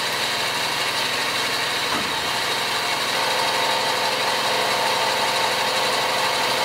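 Warco Super Mini Lathe with its brushless motor running, the spindle turning a brass piston blank against the cutting tool: a steady mechanical whine made of several steady tones, with one more tone joining about three seconds in.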